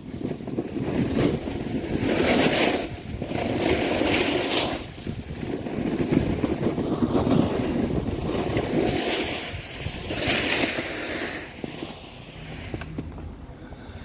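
Snowboard sliding and carving on packed snow: a rough scraping hiss that swells with each turn, mixed with wind buffeting the microphone. It gets quieter near the end.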